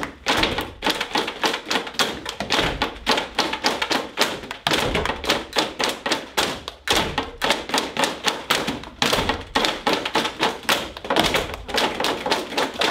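Rapid tapping and thudding on wooden classroom desks, about five knocks a second with a few short pauses.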